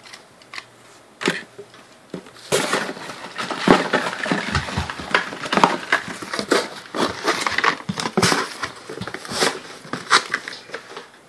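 Close rustling and crackling handling noise with many small clicks and knocks, sparse at first and dense from about two and a half seconds in.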